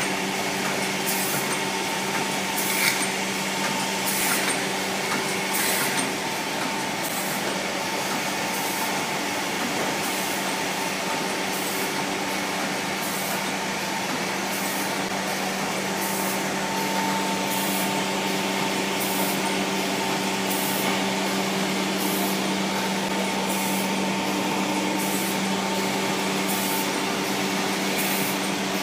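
Rotary premade-pouch powder packing machine running: a steady mechanical hum with short hisses about once a second, and a few sharper clicks in the first few seconds.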